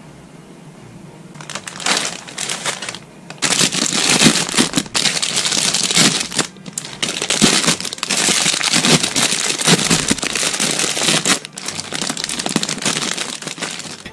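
Clear plastic bag around model-kit runners crinkling as hands grip and turn it, in loud irregular bursts with short pauses, starting about a second and a half in.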